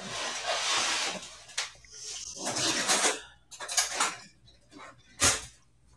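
Wooden spoon stirring a wet potato-pancake batter in a mixing bowl: several bursts of scraping and stirring, then a single sharp knock of the spoon against the bowl about five seconds in.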